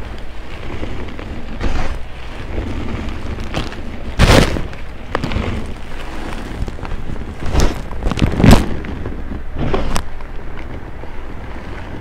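Soft reformed gym chalk crushed by hand, powder pouring and crumbling with a steady gritty hiss. A handful of sharp crunches stand out, the loudest about four and eight and a half seconds in.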